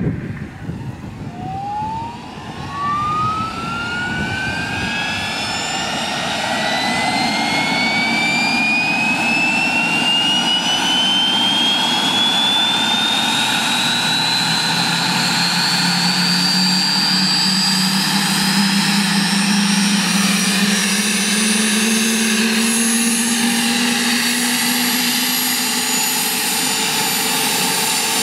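Aérospatiale SA-318C Alouette II's Turbomeca Astazou turboshaft engine starting up: a turbine whine that climbs steadily in pitch as the engine spools up, over a rushing hiss. About halfway through, a lower hum joins and slowly rises in pitch.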